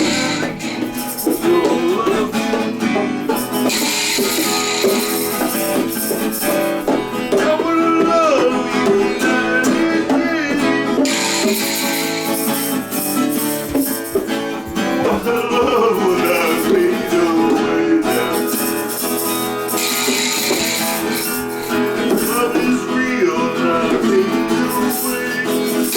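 Instrumental jam with guitar playing, joined in stretches every several seconds by a tambourine shaken in rhythm.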